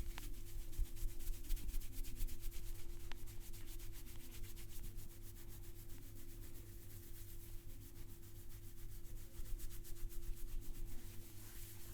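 Hands rubbing and scratching through hair and over the scalp during a head massage, a rapid, dense dry rasping that keeps up throughout, over a steady low hum.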